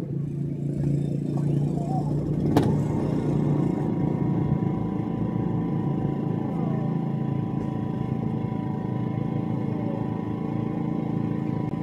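A steady low engine rumble runs throughout. One sharp click comes about two and a half seconds in, and after it a steady higher hum joins.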